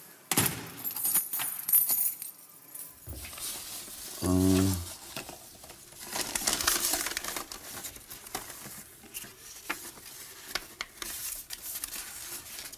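Metal clanking and jingling as a prison cell door's lock and bolt are worked open. A short low hum follows a little after four seconds, then rustling and light knocks as things are moved about in a wooden shelf.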